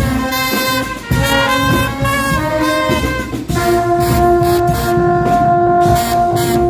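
Guggenmusik carnival band playing loudly: brass plays a short-note melody over drums, then holds one long chord from about halfway through.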